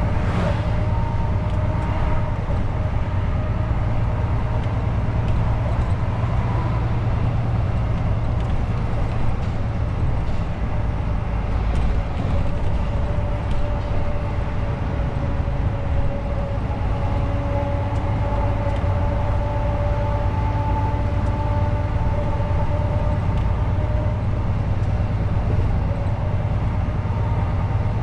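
Truck driving along at a steady speed: a constant low engine and road rumble, with a faint whine that drifts slightly in pitch.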